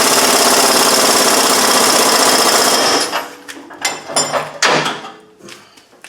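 Impact wrench hammering steadily as it tightens a leaf-spring shackle bolt, cutting off about three seconds in. A few short metal clanks and knocks of tools being handled follow.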